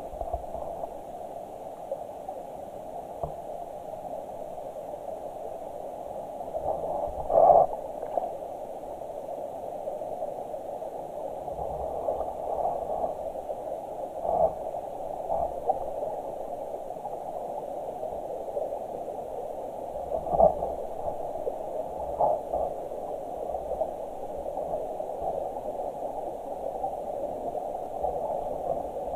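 Muffled, steady rush of stream water picked up by a Garmin VIRB XE action camera held underwater, with a few soft knocks, the loudest about seven seconds in.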